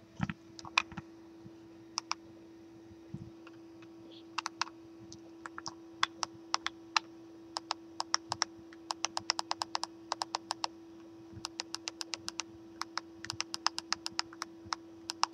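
Computer keyboard keys clicking, some singly and some in quick irregular runs of repeated presses, over a steady low hum.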